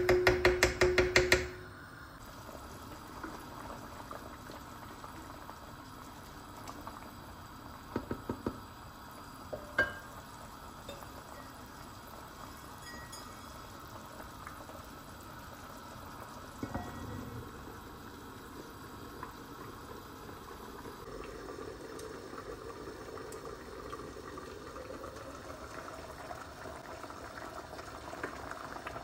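Lentil and zucchini soup simmering in a pot, bubbling steadily. A rapid run of sharp clicks comes in the first second and a half, with a few single clicks further on.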